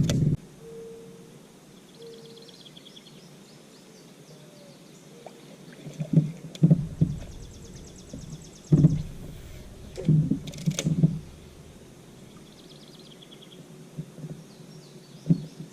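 Small birds chirping and trilling, with several low thumps and bumps now and then.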